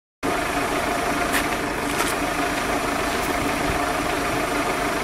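Toyota Harrier SXU10's four-cylinder engine running steadily at idle, a constant hum. The sound cuts in abruptly a moment after the start, following a brief silence.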